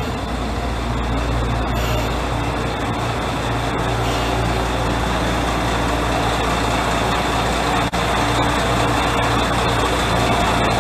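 Diesel railcar's engine idling steadily at the platform, a constant low hum.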